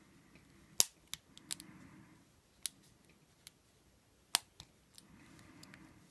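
Lock pick and tension wrench working inside an old Yale wafer padlock during picking: scattered sharp metallic clicks, the loudest about a second in and again just past four seconds, with soft scraping between them.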